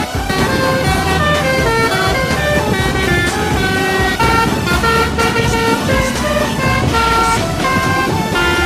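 Indonesian 'telolet' bus horn, a multi-tone Basuri air horn, playing a quick melody of short held notes that step between different pitches, with a low rumble underneath.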